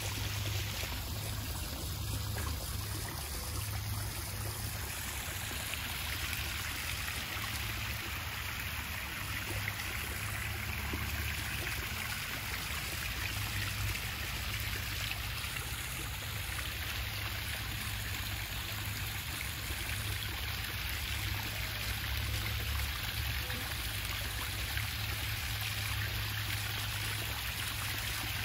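Small rock waterfall of a garden koi pond splashing and trickling steadily into the pond.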